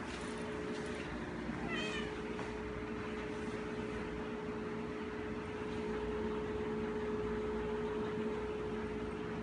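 A cat gives one short meow about two seconds in, over a steady hum.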